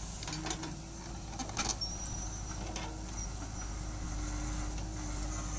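JCB 3DX backhoe loader running steadily as its backhoe bucket digs into soil, with scraping and clatter of earth and stones, sharpest about half a second and a second and a half in.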